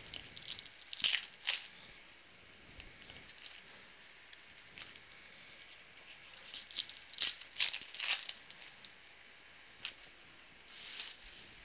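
Foil trading-card pack wrapper crinkling and crackling as it is torn open and handled, in two bouts: one in the first couple of seconds and a longer one about six to eight seconds in, with a softer rustle near the end.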